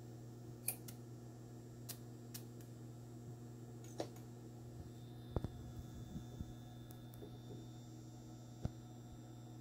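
A 2.1 GHz RF power amplifier feeding a plasma torch discharge at a connector tip: a steady low hum with scattered faint sharp clicks. A faint high whine joins about halfway through.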